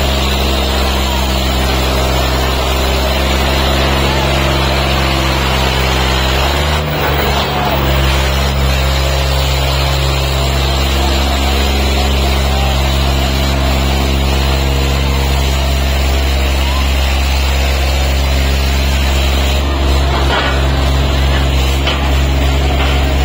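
Two tractor diesel engines, an Eicher and a Kubota, running flat out under heavy load as they pull against each other, a loud steady drone that steps up in pitch about seven seconds in. A crowd shouts over it.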